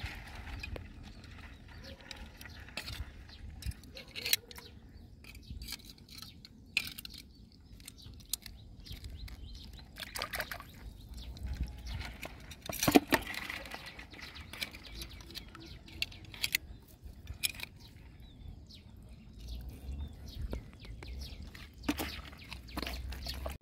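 Quiet outdoor ambience: a low rumble with scattered short clicks and knocks, the loudest about 13 seconds in.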